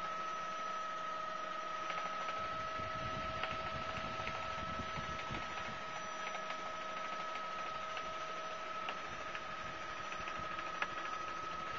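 Helicopter cabin noise in flight: a steady high whine with a second steady tone an octave below it, over an even hiss with faint scattered ticks.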